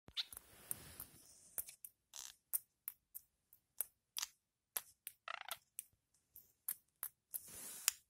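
Budgerigar's soft chatter to its toy: a rapid run of short clicks and chirps with a few hissy stretches and a brief pitched warble about five seconds in, the mumbled talk of a young talking budgie.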